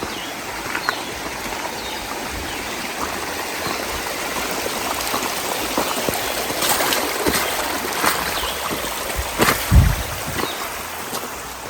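Small mountain stream flowing and gurgling over rocks, with a few short knocks and splashes in the second half and one louder low thump near the end.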